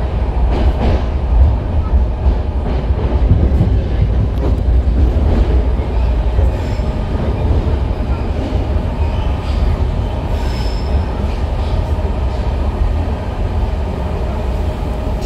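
A 1972 Rohr-built BART A car running at speed between stations, heard from inside the car: a steady low rumble of wheels on rail with car-body and track noise.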